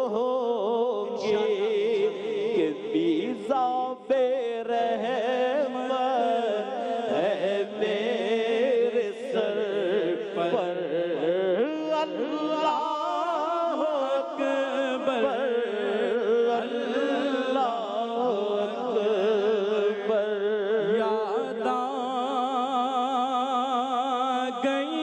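Men's voices singing an Urdu hamd in the naat style, with long drawn-out phrases whose pitch wavers in a strong vibrato.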